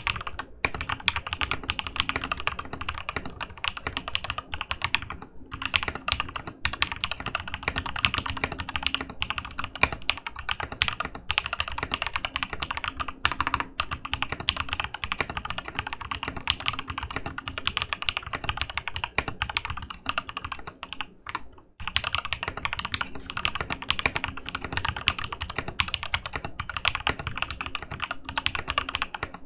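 Continuous typing on a Ramaworks KARA mechanical keyboard with SoHo R2 switches lubed with 205g0 and filmed, PBT keycaps and the internal dampener fitted: a dense run of keystrokes, with a short pause about five seconds in and another near twenty-two seconds.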